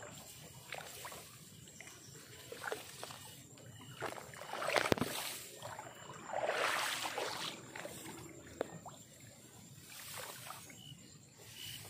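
Tall grass swishing and rustling as someone pushes through it, in irregular surges with scattered light snaps and clicks, loudest about five and seven seconds in.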